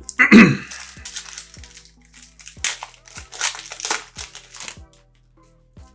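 Plastic wrapper of a trading-card pack crinkling and tearing as it is ripped open, in a run of crackly bursts that stop about five seconds in, over background music with a steady beat.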